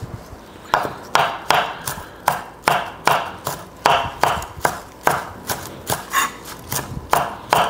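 Chef's knife chopping a bunch of Italian (flat-leaf) parsley on a wooden cutting board. The blade knocks the board in steady strokes, about two or three a second, starting about a second in.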